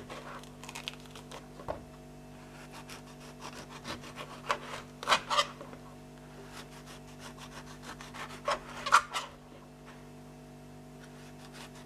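Kitchen knife cutting through pomelo pith and between the segment membranes, making short irregular scraping strokes in a few bunches, with occasional light contact on the cutting board. A steady low hum runs underneath.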